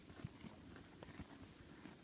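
Gotland ponies at a hay pile: faint chewing and rustling of hay with a few soft, scattered hoof thuds.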